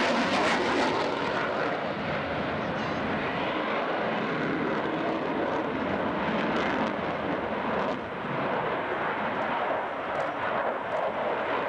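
F-16 fighter jet flying a hard-banking display pass with its afterburner lit: a steady, rushing jet roar, loudest in the first second and easing slightly about eight seconds in.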